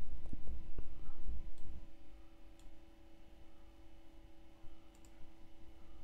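A few faint computer mouse clicks as text is selected and right-clicked, over a steady low hum and room noise, with some low thumps in the first two seconds.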